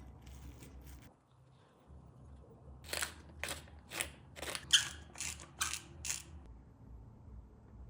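A spice grinder being twisted in about eight short crunchy turns, two or three a second, grinding seasoning.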